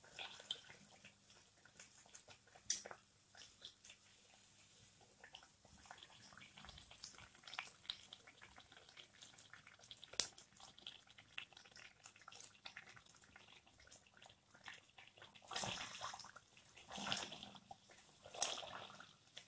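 Sweet pua batter deep-frying in hot oil: a faint, steady sizzling crackle with scattered small pops. Near the end come three louder surges of sizzling as a wire-mesh skimmer presses the pua down into the oil.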